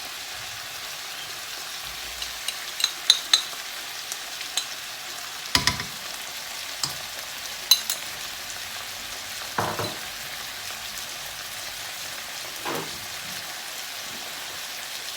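Stir-frying over high heat: a steady sizzle of vegan chicken, onion and bell peppers in sweet chili paste, with a spatula clicking and scraping against the pan now and then, mostly in the first half.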